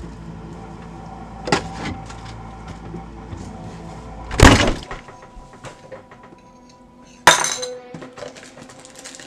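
Kitchen things being handled while breakfast is set out: glass jars and dishes clinking and a few sharp knocks. The loudest knock comes about four and a half seconds in, and another sharp one about seven seconds in.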